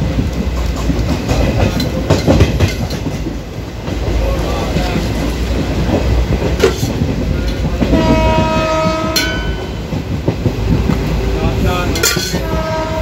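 Passenger train running, heard from inside the coach: a steady rumble with clattering and rattling from the wheels and carriage. About eight seconds in, a horn sounds steadily for about a second, and it sounds again briefly near the end.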